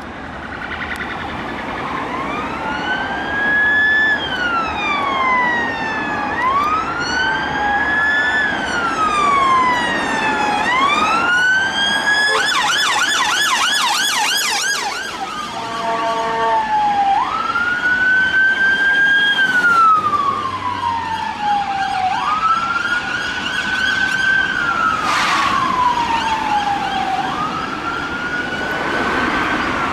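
Emergency vehicle siren sounding a slow wail that rises and falls about every four seconds, switching midway to a quicker yelp and then a very rapid warble before returning to the wail, over road noise.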